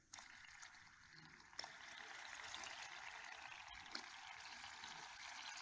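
Faint hiss of liquid nitrogen boiling and sputtering as liquid mercury is poured into it. It starts about a second and a half in, with a few small clicks.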